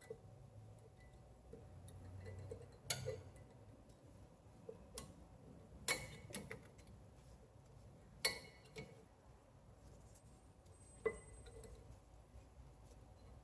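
Several light, sharp metallic clinks and clicks, spread out, as metal brake parts and hand tools are handled during rear brake pad work.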